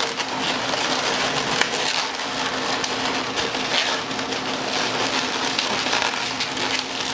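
Inflated latex 260 twisting balloons rubbing and squeaking against each other as they are rolled through and twisted together, a dense rubbery rustle with scattered squeaks.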